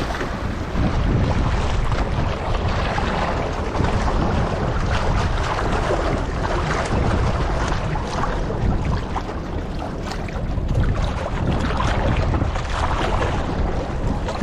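Strong gusty wind buffeting the microphone with a heavy rumble, over river waves lapping and splashing against the bank.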